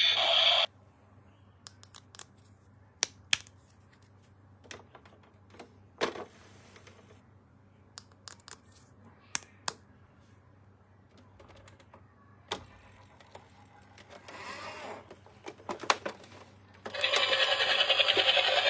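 Scattered sharp clicks and taps of plastic toy parts and packaging being handled. A loud electronic toy sound cuts off just under a second in, and a loud, fast, rattling buzz from a toy's sound or motor starts near the end.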